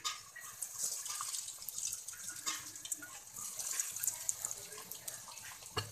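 Breadcrumb-coated chicken drumsticks deep-frying in hot oil in a wok: a steady crackling sizzle of fine pops, with a single knock near the end.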